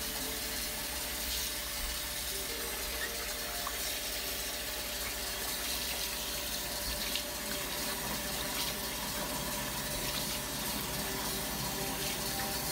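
Kitchen faucet running steadily into a plastic bowl of purple sticky rice and water as the rice is rinsed by hand.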